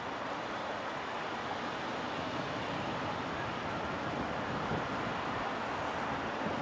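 Steady rushing jet noise from a Boeing 777 freighter's GE90 engines as it rolls along the runway.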